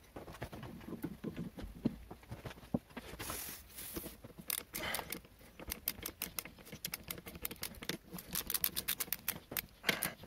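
Light metal clicks and handling noises at a stopped lathe's drill chuck and tool post, with a couple of brief scraping rustles and a quick run of ticks near the end.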